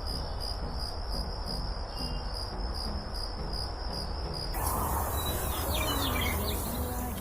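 Recorded nature sound effect of MIUI 11: crickets chirring in a steady high trill that pulses a few times a second. About four and a half seconds in it changes to a noisier ambience with short bird-like chirps.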